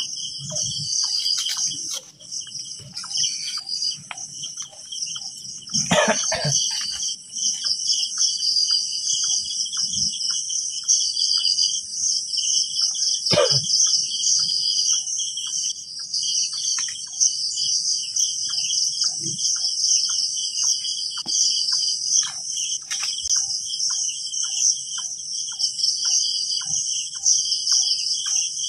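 Many crickets chirping in a high, continuous chorus, broken by two short louder sounds about six and thirteen seconds in.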